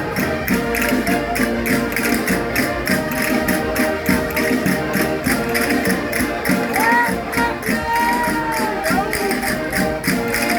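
Concertinas (diatonic button accordions) playing a lively folk dance tune in held chords over a fast, steady percussive beat. A brief sliding tone rises and falls over it about seven seconds in.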